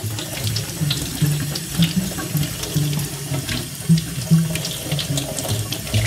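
Water running from a tap into a sink, a steady rush with small splashes.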